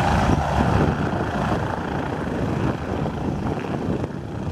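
MBB Bo-105 helicopter's main rotor and twin turboshaft engines running loudly as it hovers low and sets down onto the ground. The noise grows gradually quieter toward the end.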